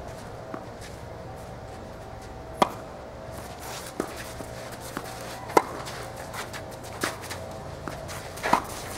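Tennis ball in a doubles rally: sharp pops of rackets striking the ball and the ball bouncing on the court, irregularly spaced, the loudest about two and a half and five and a half seconds in.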